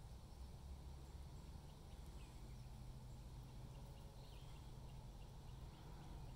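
Quiet outdoor ambience: a steady low rumble with a few faint, short high chirps scattered through it, and a run of tiny evenly spaced chirps near the end.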